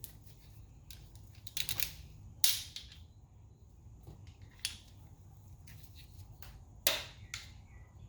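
Scattered sharp metallic clicks and clinks of hand tools and brake parts being handled while working on a car's rear brake, the loudest about two and a half seconds in and again near seven seconds, over a low steady hum.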